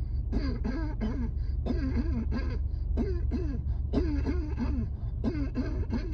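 A person coughing and hacking in quick runs of short, voiced coughs with brief gaps between runs: a coughing fit that the uploader puts down to a severe asthma flare-up. A steady low rumble sits underneath.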